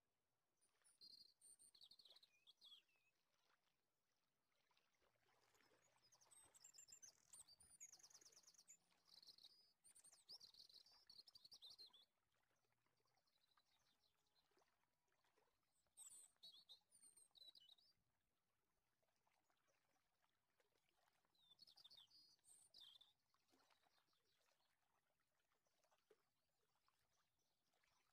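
Near silence, with faint high chirping in several short bouts.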